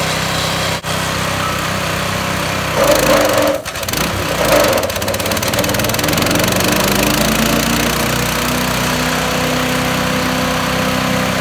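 A Harbor Freight Predator 212cc single-cylinder four-stroke engine on a chipper shredder, running just after a cold start. About three seconds in there is a louder, uneven stretch lasting a couple of seconds; then the engine runs steadily again, its pitch rising slightly.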